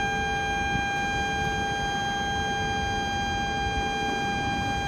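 Station departure signal: one steady, high electronic buzzer tone for about five seconds, cutting off suddenly, as the Shinkansen is about to depart.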